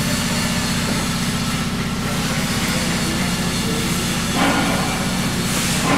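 Steady low drone of running heavy machinery, with a brief rustle about four and a half seconds in.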